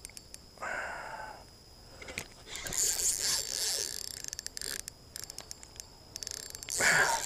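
Spinning reel clicking and scraping during a fight with a large carp that keeps pulling drag, with rustling close to the chest-mounted camera. There are scattered sharp clicks, and a louder burst of noise near the end.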